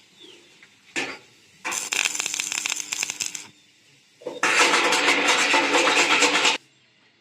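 Stick-welding arc with a 6013 electrode at about 150 amps, crackling in two bursts of about two seconds each, the second louder, after a short sharp strike about a second in.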